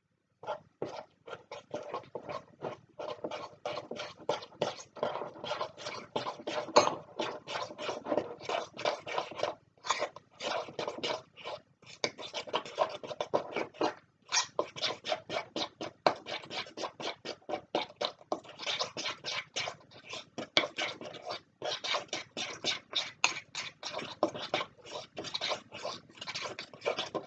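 Whisking a thick chocolate icing mixture in a bowl: quick, repeated scraping strokes, about four a second, with a few brief pauses.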